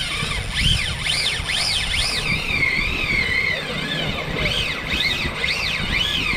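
Spinning reel's drag whining as a hooked fish pulls line off, the pitch sweeping up and down again and again as the run speeds and slows, over a low rumble of wind on the microphone. The run is long enough that the angler fears running out of line.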